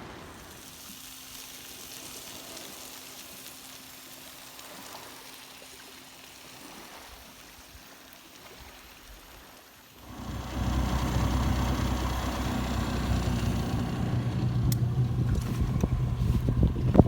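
Faint steady hiss for the first ten seconds or so, then a boat engine comes in suddenly, running with a steady low drone that builds slightly toward the end.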